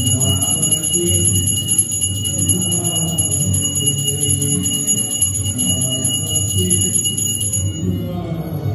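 Temple hand bell rung rapidly and continuously during aarti, over the aarti being sung to music; the bell stops near the end.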